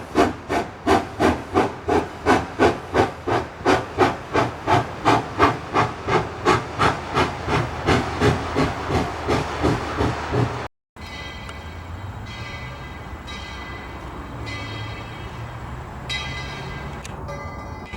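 Narrow-gauge steam locomotive working, its exhaust chuffing steadily at about three beats a second, the beats quickening, blurring together and fading as it goes. About ten seconds in the sound cuts off to a quieter steady hum with faint ringing tones.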